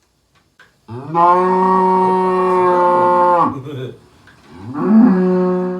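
Cow mooing twice: one long, steady moo, then a second that rises in pitch before holding.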